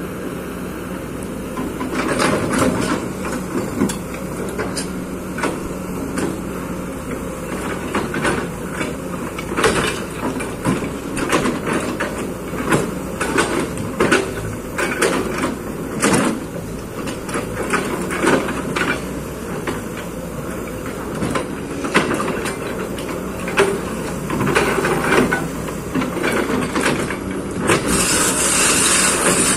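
Kobelco excavator's diesel engine running under work, with frequent irregular clanks and knocks. A high hiss comes in near the end.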